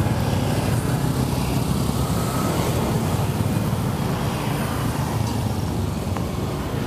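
Road traffic: motor vehicles running along the street, a steady low rumble.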